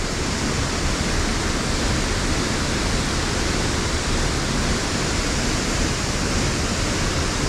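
Thornton Force waterfall crashing into its plunge pool: a steady, loud rush of falling water.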